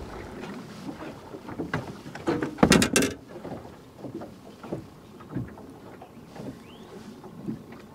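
Scattered clicks and knocks of fishing tackle being handled in a jon boat as a rod is rebaited, with a louder cluster of knocks about three seconds in.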